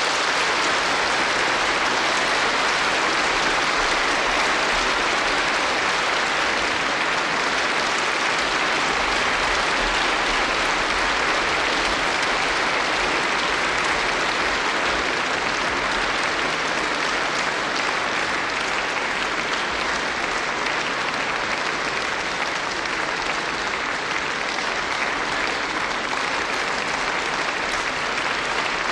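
Concert audience applauding steadily at the end of a song: dense, sustained clapping with no let-up.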